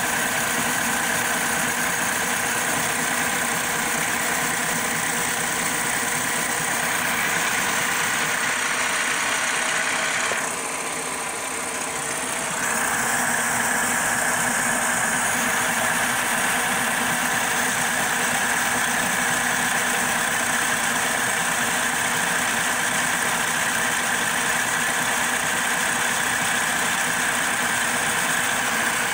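CNC-converted Logan 12-inch lathe turning a pulley blank, its carbide insert cutting metal with a steady whine. The sound drops a little for about two seconds, a third of the way in, then resumes.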